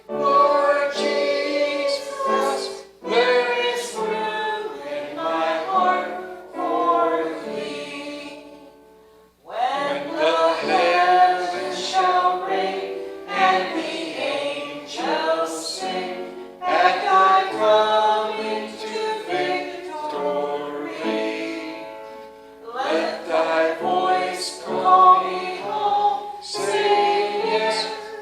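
Choir singing a hymn, in phrases with a brief pause about nine seconds in.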